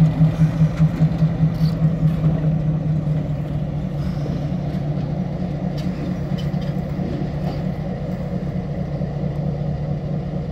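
EMD RS1325 diesel locomotive running as it rolls slowly past, its diesel engine giving a low pulsing throb. The throb is loudest for the first three seconds, then softer and steadier as the locomotive moves away, with a few faint clicks in the middle.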